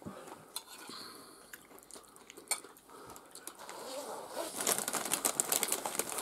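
Close-up eating sounds: a few scattered clicks of forks on china plates, then, from about two-thirds of the way in, a dense run of crunching as a nacho chip piled with cheesy taco gratin is bitten and chewed.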